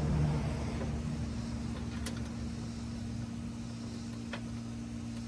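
A passing car fades out at the start, leaving a steady low vehicle hum. Two faint clicks, about two seconds and four seconds in, come from small bolt hardware being handled at a hood catch bracket.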